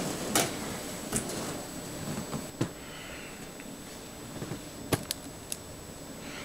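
A handful of short, sharp knocks and clicks, irregularly spaced, in a small room, with two close together about five seconds in.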